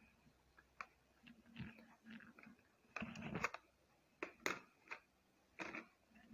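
Faint, irregular scratching and clicking noises, a dozen or so short scrapes and ticks in a quiet room, the loudest cluster about three seconds in.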